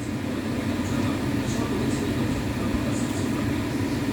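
Faint, short mouth clicks of chewing and lip-smacking, a few times, over a steady low background rumble.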